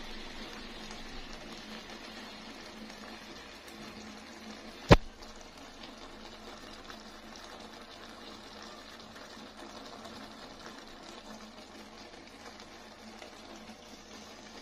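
Soft, steady simmering hiss from a pot of spiced rice still cooking in its oily liquid, slowly growing quieter, with one sharp click about five seconds in.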